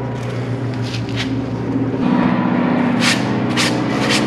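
A motor running steadily with an even drone that swells a little about halfway through, and a few short sharp ticks near the end.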